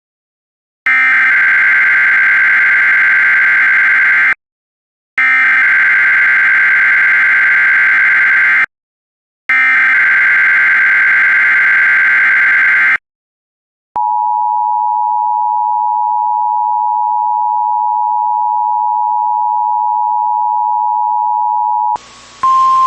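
Emergency Alert System alert tones: three buzzy bursts of SAME digital header data, each about three and a half seconds long, then the steady two-tone attention signal for about eight seconds. It is the lead-in to a broadcast High Wind Warning.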